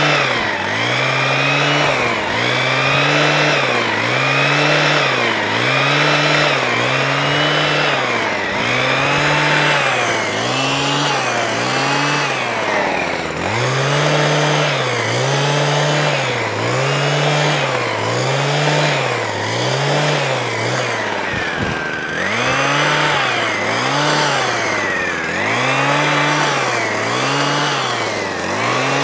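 Two-stroke petrol hedge trimmer being worked along a hedge, its engine revving up and easing off about once a second as the throttle is squeezed and released. About two-thirds of the way through it drops back briefly, then picks up the same rhythm again.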